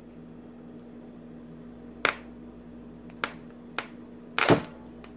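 Four sharp clicks and knocks from hard objects being handled and set down, the last one the loudest, over a steady low hum.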